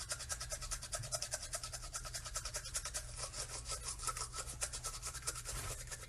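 Rapid, steady toothbrush scrubbing, about ten short strokes a second.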